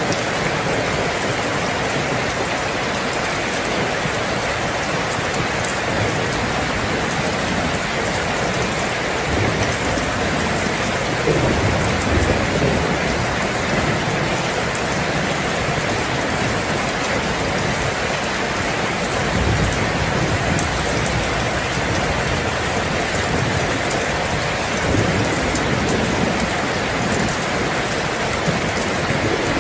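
Heavy rain falling steadily, with low thunder rumbles swelling up a few times, the strongest about twelve seconds in.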